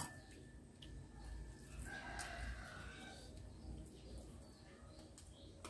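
A rooster crowing faintly once, about two seconds in, with a few light clicks of spoons on plates.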